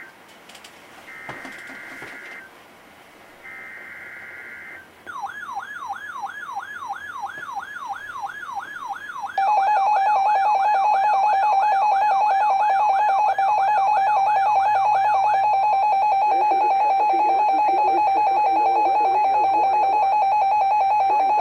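Two short screeching bursts of an EAS SAME digital data header from a NOAA Weather Radio broadcast. About five seconds in, an alert receiver starts a siren-like wailing alarm, sweeping about four times a second. About nine seconds in, the loud, steady 1050 Hz NOAA Weather Radio warning alarm tone begins and runs on, marking a Required Weekly Test.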